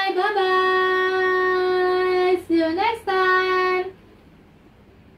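A child's high voice singing long, drawn-out held notes, with a quick slide in pitch about two and a half seconds in; it stops about four seconds in, leaving only faint room hiss.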